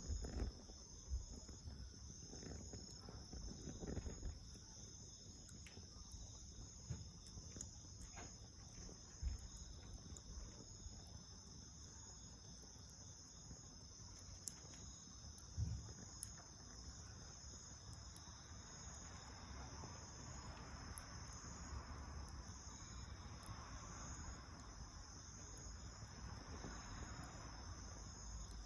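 Steady high-pitched chirring of insects, like crickets, over a low rumble, with scattered faint pops and a soft hiss from a small fire of dried leaves and twigs that grows from about two-thirds of the way in.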